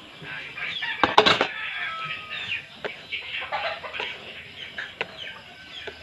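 Chickens clucking repeatedly, with a cluster of sharp knocks about a second in.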